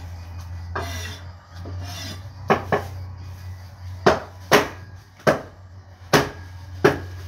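Cleaver chopping roast pork on a wooden chopping board: about seven sharp, irregular chops, starting some two and a half seconds in.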